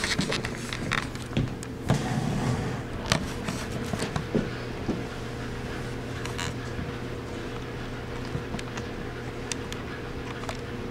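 A camcorder is handled and set down: scattered knocks and clicks over the first five seconds or so. After that there is a steady low hum with a few faint ticks.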